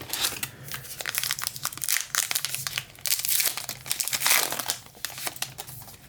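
Plastic-foil trading card pack wrapper crinkling as it is handled and torn open, an irregular run of crackles.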